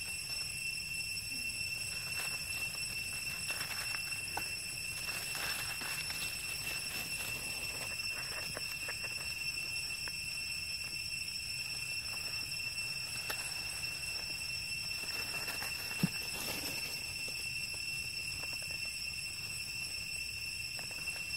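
Dry fallen leaves crackling and rustling as young monkeys wrestle and roll on them, over a steady high-pitched whine. A single sharp snap late on.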